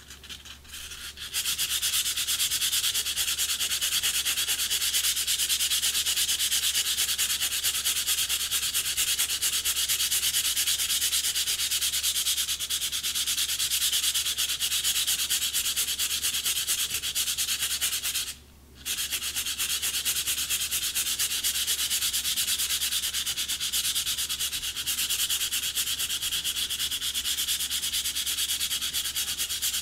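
Sandpaper rubbed rapidly over a cane clarinet reed pressed on a glass plate, making a dense, scratchy rasp of quick strokes. It stops for about half a second some 18 seconds in, then carries on.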